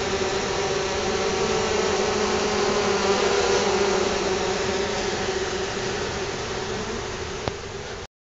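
Honey bees of a freshly installed nucleus colony buzzing steadily at the hive entrance. The hum eases a little in the second half, a single small click sounds near the end, and it cuts off abruptly.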